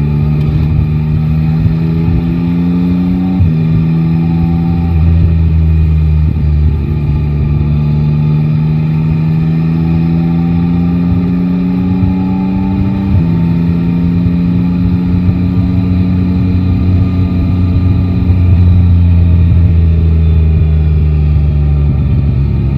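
Yamaha Tracer 9 GT's inline three-cylinder engine pulling through the gears. Its pitch climbs steadily and drops suddenly at two upshifts, about three and thirteen seconds in, then settles and eases off near the end.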